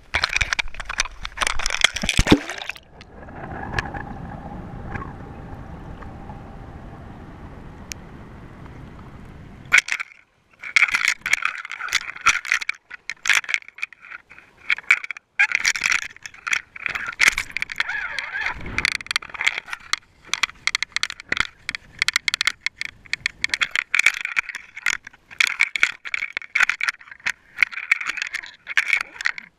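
A GoPro in its waterproof housing handled and then lowered into the sea: quick knocks and clicks at first, a muffled underwater hiss for several seconds, then from about ten seconds in a dense, fast rattling, clicking and scraping as the camera tumbles and knocks about underwater.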